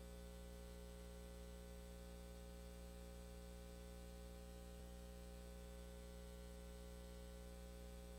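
Near silence: a steady low electrical hum with faint hiss and a thin high whine, broken only by one faint tick about five seconds in.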